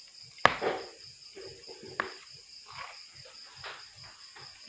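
Crickets chirping steadily while someone eats with a metal spoon: a sharp click of the spoon against the plate about half a second in, a smaller click at about two seconds, and soft eating sounds between.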